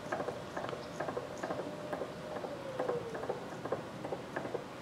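Lathe cross slide being hand-cranked to sweep a dial indicator across a parallel, giving light irregular clicks and ticks, several a second. A faint steady tone sits underneath and drops a little in pitch about three seconds in.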